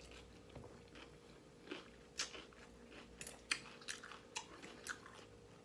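Chewing a mouthful of salad: faint, irregular crunches and wet mouth clicks, coming more often after the first couple of seconds.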